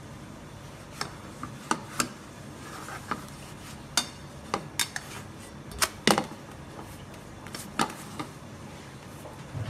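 Irregular sharp clicks and knocks of kitchen utensils against a nonstick frying pan, the loudest about six seconds in, over a steady low background noise.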